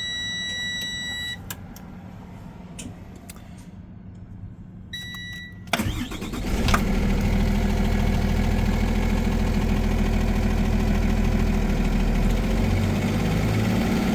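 A steady electronic dashboard warning tone sounds, stops, and sounds again briefly. About six seconds in the bus's Cummins B6.7 inline-six diesel cranks and starts, then settles into a steady idle.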